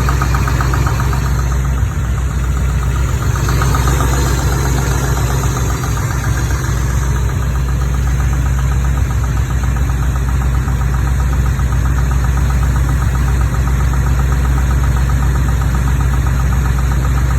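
Chevrolet Corvette 350 small-block V8 idling steadily with a rapid tappety knock in the valvetrain, which the owner asks may need adjusting.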